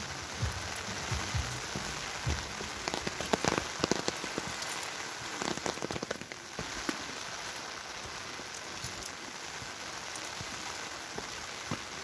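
Steady rain falling on wet stone steps and grass, a constant hiss with scattered sharper drip taps, most of them in the middle of the stretch.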